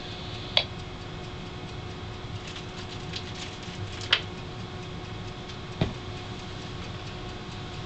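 Steady low hum and hiss with a few faint clicks, and a single soft thump about six seconds in as a cat jumps down from the top of a bookcase and lands.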